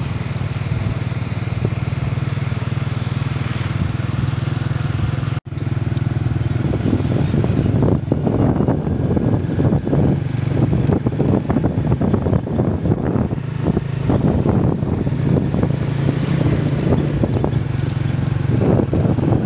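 Motor scooter riding at steady speed: a steady low engine hum under wind rushing over the microphone. The sound drops out for an instant about five seconds in, and the wind buffeting turns rougher after that.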